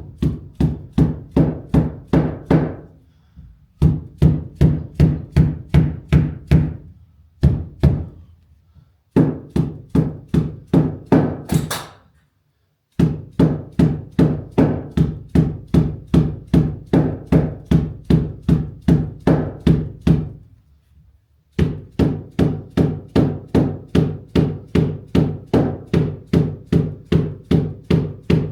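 Rapid, evenly spaced knocks, about four or five a second, each with a short low ring at the same pitch, coming in runs of a few seconds broken by brief pauses.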